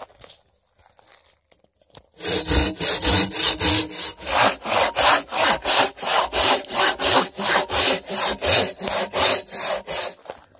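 Hand saw cutting through a dead, weathered log with quick back-and-forth strokes, about three or four a second, starting about two seconds in after a near-quiet moment.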